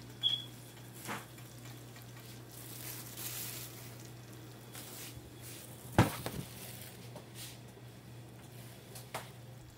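Faint sizzling of shrimp simmering in sauce in a cast-iron skillet, over a steady low hum. A short metallic clink of the pot lid comes right at the start, there are a few light taps, and a sharp knock about six seconds in is the loudest sound.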